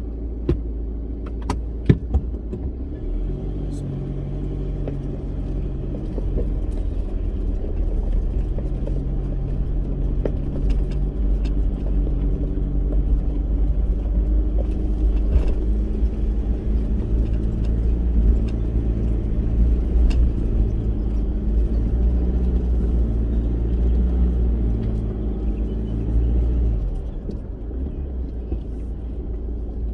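4WD vehicle engine running under load as it drives up a rough dirt track, with a deep, steady rumble. The engine note rises about three seconds in and eases near the end, and a couple of sharp knocks come about two seconds in.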